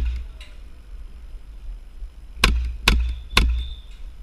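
Airsoft MP7 gas-blowback gun firing single shots, each a sharp crack with a low thump. There is one shot at the very start, then three more about half a second apart from two and a half seconds in.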